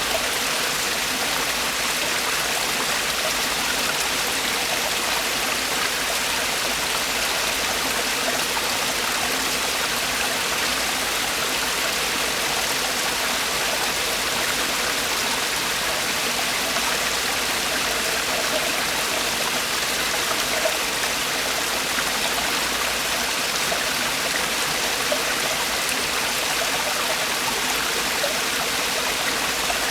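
Mountain stream water falling and splashing over rocks in a steady rush, with no pauses or changes.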